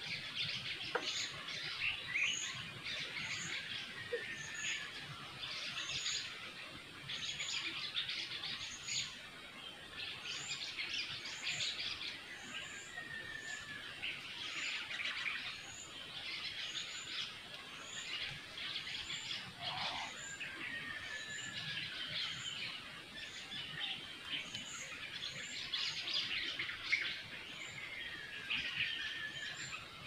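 Wild birds chirping and calling over one another in a steady chorus, with one high note repeating about once a second.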